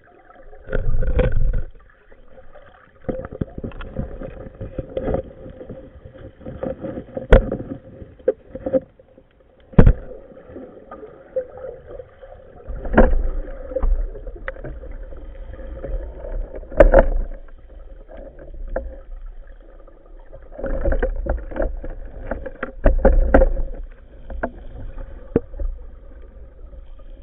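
Muffled water sloshing and movement, heard through a sealed camera housing, with irregular sharp clicks and knocks and a faint steady hum.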